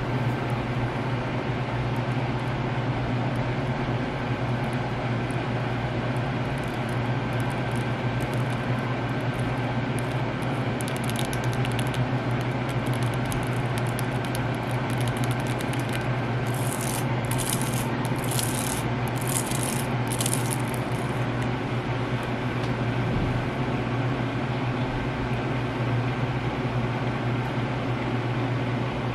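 Long press-on nails scratching and tapping, with a run of sharp clicks and scratches in the middle as the nails are rubbed against each other, over a steady low hum.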